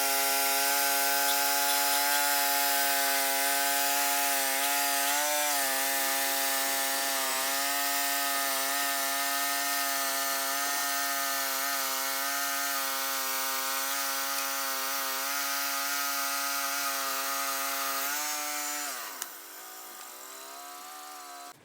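Sawmill cutting a cedar log: the mill's motor runs steadily under load with the blade hissing through the wood. About nineteen seconds in, the motor's note falls in pitch and the sound gets much quieter.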